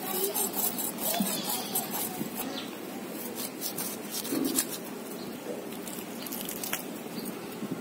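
Scratchy scraping of a curved metal blade over the ash-coated skin of spotted snakehead (taki) fish as they are scraped clean. Rapid, dense strokes for the first two seconds or so, then sparser ones with a sharp scrape near the end.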